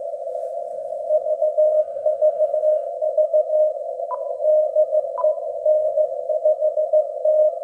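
Morse code (CW) signal in the 10-metre beacon segment, received on an Icom IC-7610 transceiver and an IC-R9500 receiver: a keyed tone switching on and off in the hiss of a narrow CW filter. Two short button beeps from the transceiver come about four and five seconds in.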